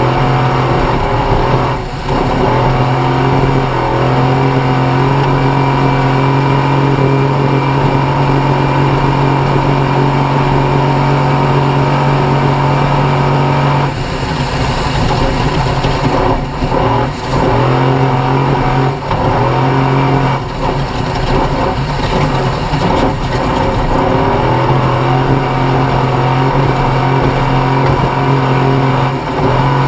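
Off-road race vehicle's engine running hard at high revs under load, with a rushing noise behind it. Several times the note drops briefly and changes pitch as the throttle lifts or a gear changes, first about two seconds in and then a cluster from the middle onward.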